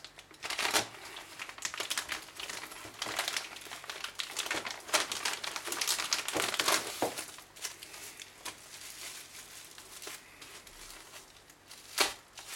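Clear plastic bag and the wrapping inside it crinkling and rustling as they are slit open with a box cutter and pulled apart by hand. The rustles come in irregular bursts, busiest over the first seven seconds or so, then sparser, with one sharp crackle near the end.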